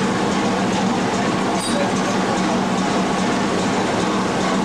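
Fishing boat's engine running with a loud, steady drone and a low hum.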